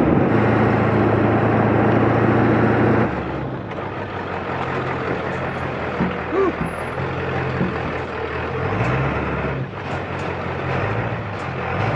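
Ford 7.3 L Powerstroke V8 turbo-diesel of a 1996 F350 running as the truck crawls along a rough, muddy trail. It is heard from inside the cab at first, then from outside from about three seconds in, quieter and with the engine note shifting.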